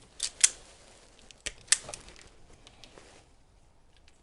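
Wire cutters snipping through a battery connection wire: a few sharp clicks, followed by lighter clicks and handling noise.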